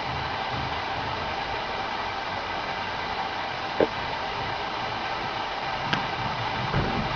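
Steady fan-like hiss of background noise, with a single sharp knock a little under four seconds in and a fainter click a couple of seconds later.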